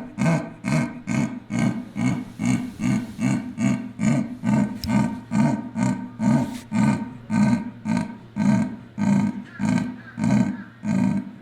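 Sea lion barking in a fast, steady series of low, hoarse calls, about two to three barks a second without a break.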